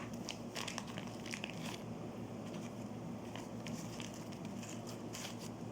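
Packaging crinkling as it is handled, with scattered small crackles and clicks that are thicker in the first two seconds and again near the end, over a steady low hum.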